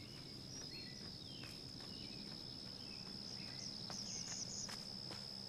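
Rural outdoor ambience: an insect's steady, high-pitched drone, with birds chirping over it, the chirps busiest near the end, and a few faint clicks.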